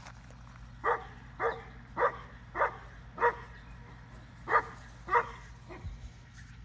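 Adult female Newfoundland dog barking: five barks about half a second apart, a short pause, then two more. The owner takes it as the mother calling for her puppies to come back to her.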